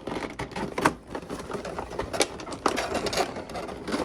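Clear plastic clamshell packaging being pried open and handled, with an irregular run of sharp plastic clicks and crackles.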